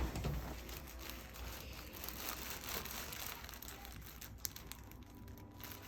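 Quiet rustling and crinkling of a patient shifting on a chiropractic treatment table, with one small click about four and a half seconds in.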